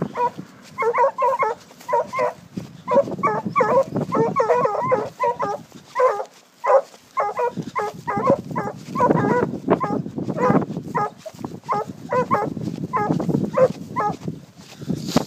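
Two Porcelaine scent hounds on long leads giving voice on a wild boar's trail: repeated high yelping barks, several a second in bursts, with a short lull about six seconds in.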